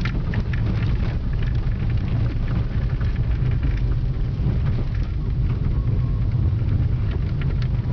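A car driving on an unpaved dirt road, heard from inside the cabin: a steady low rumble of engine and tyres, with frequent small ticks and rattles as it runs over the rough surface.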